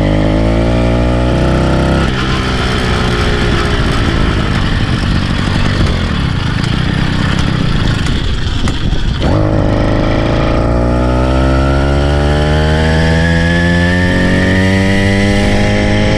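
Small engine of a kit-motorised bicycle running under load, its pitch climbing as it speeds up. After a couple of seconds it turns rougher and noisier for a stretch, then picks up and climbs steadily again.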